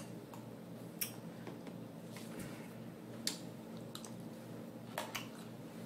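Fork scooping salad from a plastic container, with a few sharp scattered clicks and faint chewing.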